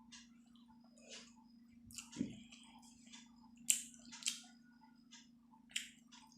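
Close-miked mukbang eating sounds: a person chewing chicken momos with wet mouth smacks and sharp little clicks. The loudest smacks come a little past halfway and again near the end, over a faint steady low hum.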